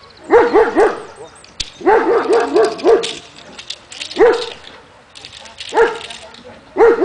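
A dog barking in quick runs of high-pitched barks: three in a row, then about five, then two single barks, then another fast run near the end.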